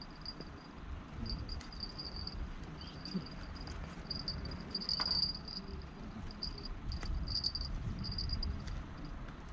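Insect trilling in high-pitched stretches of about half a second, again and again with short gaps, over a low rumble; a few faint clicks now and then.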